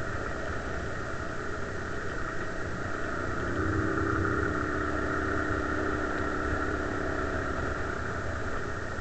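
Bashan 250 ATV engine running at riding speed along a dirt track, with a constant low rumble. A steadier engine note stands out and gets slightly louder from about three and a half seconds in to near the end.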